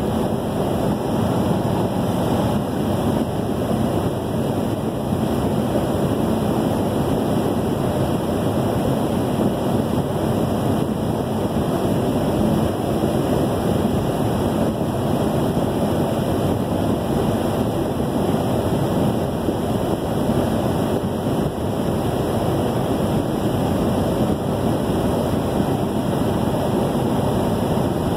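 Steady road noise heard from inside a vehicle cruising at highway speed: an even rushing of tyres and wind with no breaks.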